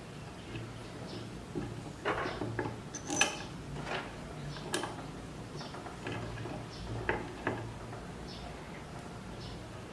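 Metal machine parts and hand tools clinking and knocking as they are handled and fitted, about half a dozen sharp knocks spread irregularly, over a faint steady low hum.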